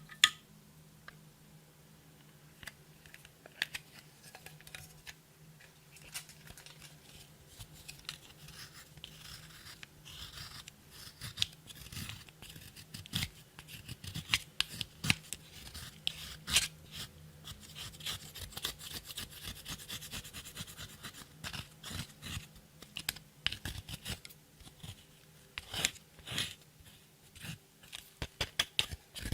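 Close-miked hands working clear slime with makeup and glitter: irregular sharp clicks, sticky pops and scraping, coming faster in the second half.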